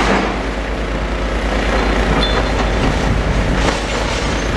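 Diesel engine of a demolition excavator running under load, with a steady low rumble and a few knocks and clatters of breaking building material.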